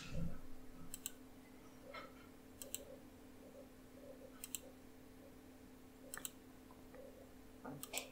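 Computer mouse button clicked about every second and a half to two seconds, each click a quick pair of ticks from press and release, over a faint steady hum. There is a low thump right at the start.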